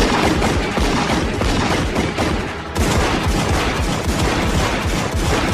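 Rapid pistol fire from several guns in a film shootout, the shots running together into a dense volley. A fresh burst starts about three seconds in.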